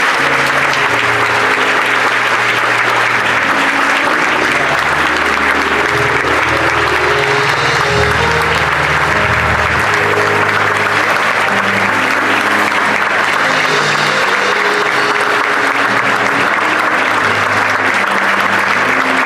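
Congregation applauding steadily, with instrumental music underneath playing held low chords that change every second or two.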